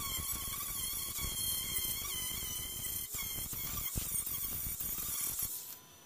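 Angle grinder with a grinding disc running against the steel quarter panel of a 1954 VW Beetle, grinding down fresh weld beads on a patch: a steady high whine with rasping metal. It stops shortly before the end.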